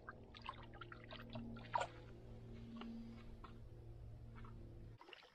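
Faint splashing and dripping of shallow river water as a northern pike is let go by hand and swims off, over a low steady hum.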